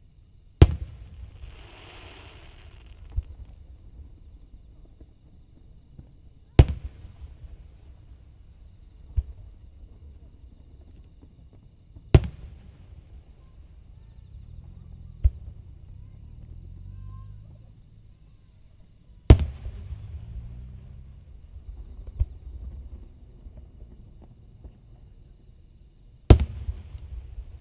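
Distant aerial firework shells bursting: five sharp booms about six to seven seconds apart, each followed by a rolling echo, with fainter bangs in between. Insects trill steadily behind them.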